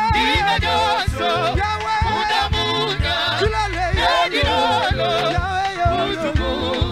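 Male worship group singing a Tshiluba praise song into microphones, lead voices wavering with vibrato, over instrumental accompaniment with a repeating bass line.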